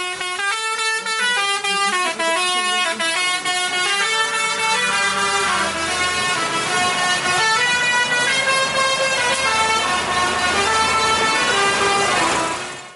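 A simple tune of stepped notes in a horn-like tone, played continuously and loud. It cuts off sharply near the end.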